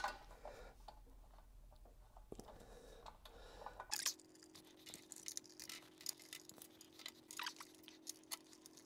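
Faint small metallic clicks and ticks of countersunk bolts being threaded by hand into an aluminium motorcycle skid plate.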